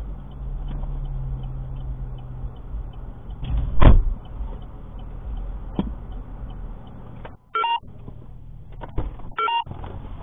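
Inside a stopped car: the engine hums low and steadily, with faint regular ticking. A loud thump comes about four seconds in, and two short electronic beeps sound near the end.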